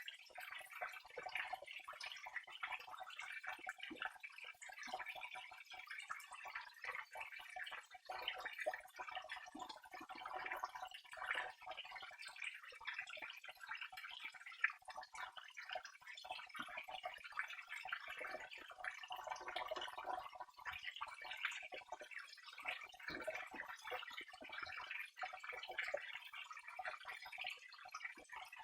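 Water flowing and trickling steadily, with a continuous patter of small drips and splashes.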